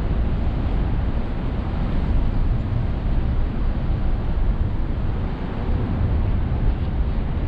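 Steady city traffic noise under an elevated expressway: a continuous low rumble from vehicles on the road deck overhead and the streets below, with no single vehicle standing out.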